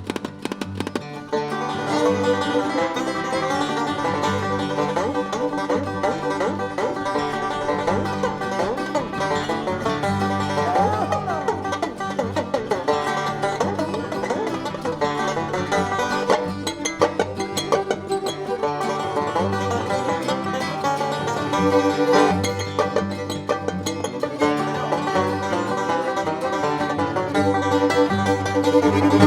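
Live bluegrass band playing an instrumental tune, with a five-string banjo picking the lead over guitar and a steady bass line.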